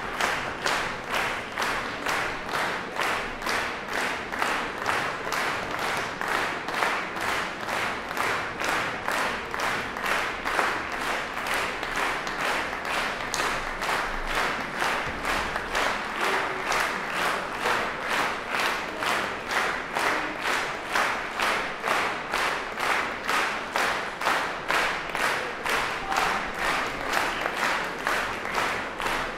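Audience applauding in unison, a steady rhythmic clap about twice a second.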